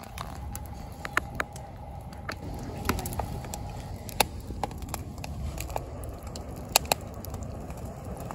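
Firewood burning in a steel fire-pit stand, crackling with irregular sharp pops over a low steady rush of flame, a couple of pops louder than the rest.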